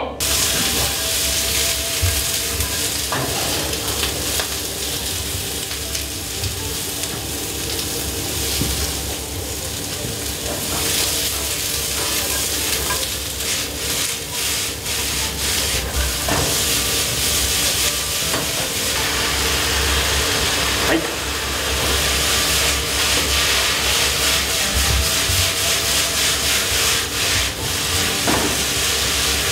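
Vegetables and then sauced yakisoba noodles sizzling in a frying pan, stirred and tossed with long chopsticks, with frequent sharp clicks of the chopsticks and pan.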